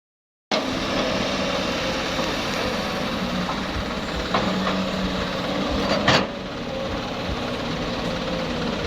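Heavy machinery diesel engine running steadily, starting about half a second in, with a few metallic knocks, the loudest about six seconds in.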